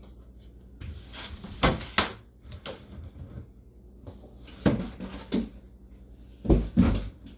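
A series of sharp knocks and thumps, with rustling between them, from objects and packaging being handled; the loudest pair of thuds comes near the end.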